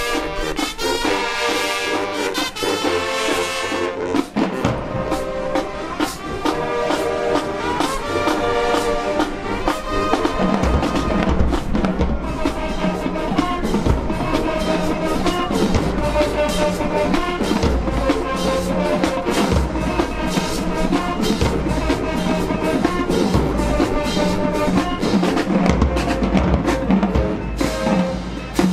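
High school marching band playing: brass chords at first, with drums coming in about four seconds in and the full band with a heavy low end from about ten seconds in.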